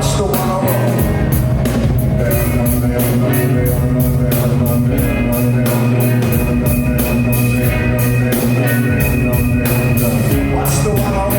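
Live rock band playing an instrumental passage: drum kit keeping a steady beat under sustained guitar, loud and unbroken.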